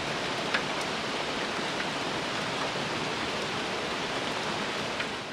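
Steady rain falling, an even hiss with a few louder single drops.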